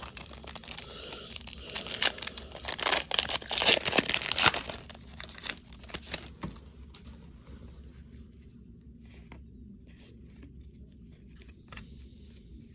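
A baseball card pack's wrapper being torn open and crinkled for about five seconds, then quieter scattered rustles and clicks as the cards are handled.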